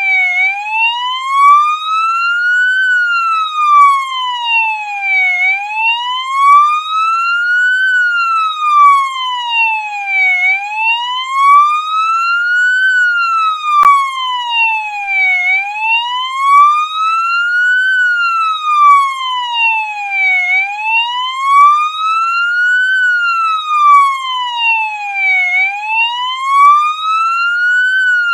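Police siren on its wail setting: one tone sliding slowly up and then back down, about one rise and fall every five seconds, repeating evenly.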